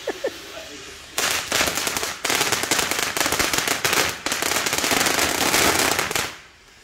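Ground fountain firework spraying sparks with a loud, dense crackle. It starts suddenly about a second in, dips briefly twice, and dies away shortly before the end.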